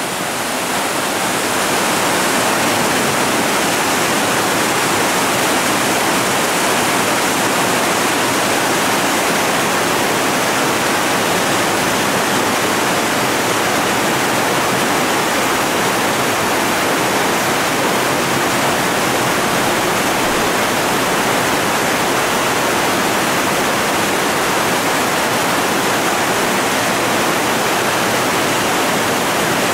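Whitewater rapids on the Colorado River rushing steadily, a constant noise of churning water that swells slightly in the first two seconds and then holds even.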